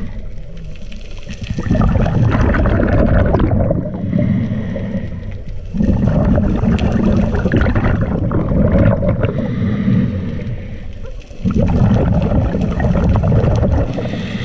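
Scuba diver breathing through a regulator underwater: exhaled bubbles gurgle out in three long spells, with quieter inhalations between.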